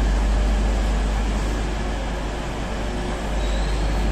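Railway station ambience under a large trainshed: a steady low rumble beneath an even wash of background noise, dipping slightly and picking up again near the end.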